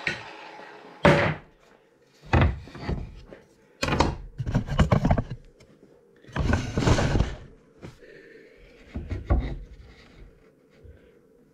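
Wooden boards being handled and set down: a series of sharp wooden thunks and knocks with scraping in between, about five separate events.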